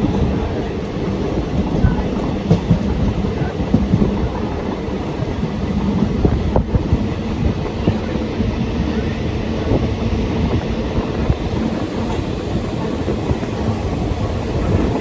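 Passenger train running along the track, heard from on board: a steady rumble with irregular wheel knocks and carriage rattles.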